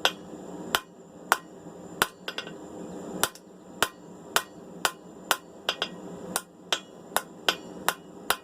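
Blacksmith's hand hammer striking hot steel on an anvil while forging tongs, sharp blows at roughly two a second, a few coming closer together. A steady low hum runs underneath.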